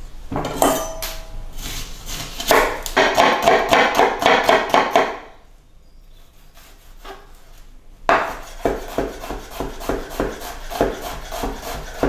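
Chef's knife chopping an onion on a wooden cutting board: quick runs of knocks on the board, several a second, with a pause of a few seconds in the middle before the fast chopping resumes.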